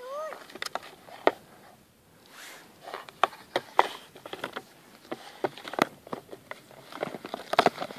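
A puppy chewing, shaking and dragging a red plastic toy through deep snow: a quick run of sharp plastic crackles and scrapes with snow crunching. A brief squeak comes right at the start.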